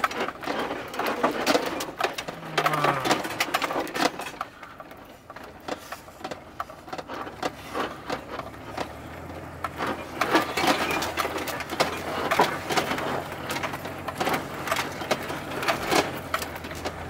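Camper van bouncing slowly over a rocky dirt road, heard from inside the cab: its body and loose contents rattle and knock without a break, with short creaking squeaks in the first few seconds. A steady low engine hum comes in about halfway through.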